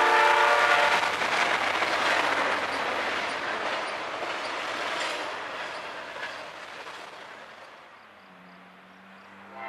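CSX freight train passing close by. The last of its locomotive horn drops in pitch during the first second, then the steady rumble and clatter of double-stack container cars rolling past fades gradually. Near the end only a faint low hum is left.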